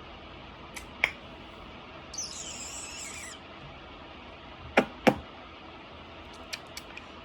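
Quiet room tone broken by a few sharp clicks or taps, the two loudest close together about five seconds in, and a short high hiss around two to three seconds in.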